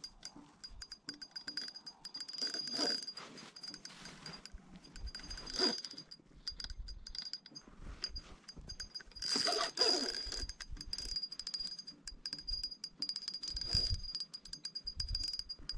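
Spinning reel whirring and ticking under the load of a big sturgeon on the line, loudest in several short spells.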